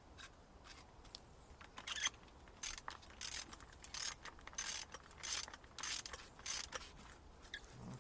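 Ratchet wrench clicking in about eight short, evenly spaced strokes, roughly one and a half a second, tightening the nut on a shock absorber's top mount.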